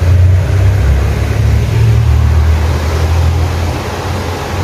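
A loud, steady low rumble with a faint hiss above it, easing off slightly near the end.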